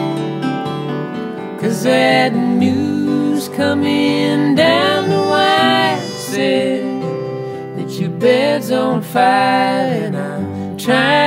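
Live acoustic folk song: acoustic guitar playing under a singing voice.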